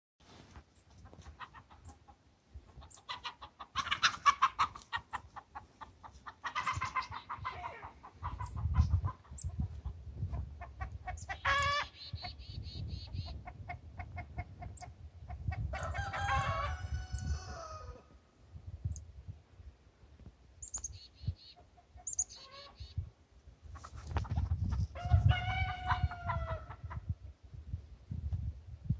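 A flock of chickens clucking and squawking, agitated as they are chased about. Three longer calls stand out, one around twelve seconds in, one around sixteen and one near twenty-five seconds, the likely sound of a rooster crowing.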